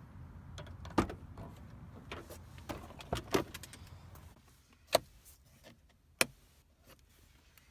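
A few sharp clicks and knocks from handling things inside a car cabin, over a low rumble that fades out about halfway through.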